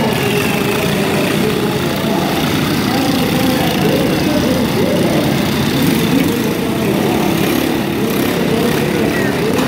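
Several riding lawn mower engines running at once, their pitches rising and falling as they rev, with crowd voices mixed in.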